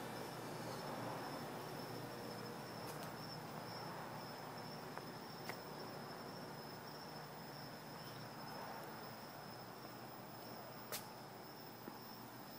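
Night insects trilling in one steady, high-pitched unbroken tone, with a couple of sharp clicks, the loudest about eleven seconds in.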